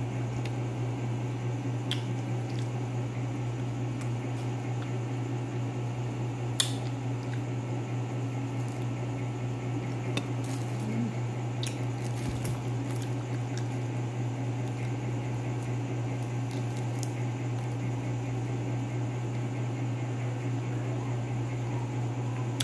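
Soft squishing, crinkling and small clicks of fingers peeling lanzones fruit over a plastic bag, over a steady low hum. One sharper click stands out about six seconds in.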